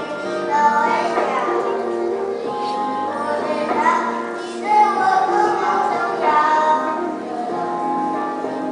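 A child singing a song solo over instrumental accompaniment, the voice holding and gliding between sustained notes.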